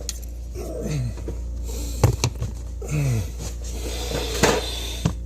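A man groaning with strain, two short groans falling in pitch, with a couple of sharp knocks from parts being handled.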